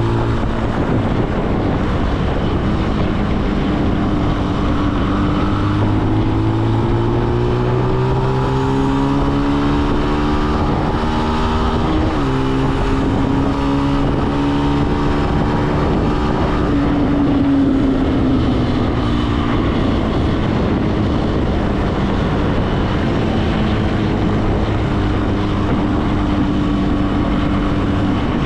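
Benelli BN125's single-cylinder four-stroke engine running under way, with wind noise on the microphone. The revs climb steadily for several seconds, drop sharply at a gear change about halfway through, then fall away as the bike slows and settle to a steady pitch.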